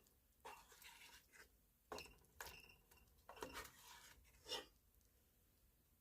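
Faint scrapes and light clinks of a spoon against a pan and a dish as sauce is spooned over chicken and rice, in several short strokes over the first four and a half seconds.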